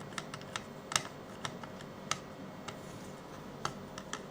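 Small screwdriver turning the tiny retaining screw clockwise to hold an NVMe M.2 SSD down, giving a dozen or so light, irregular clicks.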